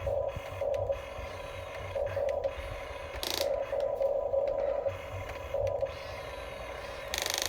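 Small electric motors and plastic gearboxes of a Huina RC construction toy whining in short, irregular bursts as the controls are worked. Two brief noisy bursts come about three seconds in and near the end.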